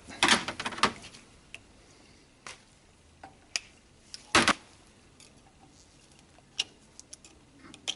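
Scattered light clicks and knocks of a motorcycle fork leg and hand tools being handled on a workbench, with a few in quick succession at the start and one louder knock about four and a half seconds in.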